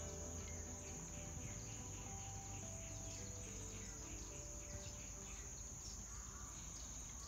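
Crickets and other insects chirping: a steady high drone with rows of short repeated chirps, over a low steady rumble.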